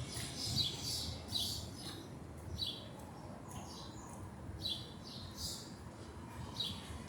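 A flock of small birds chirping: many short, high chirps, often several at once, coming every fraction of a second with brief gaps.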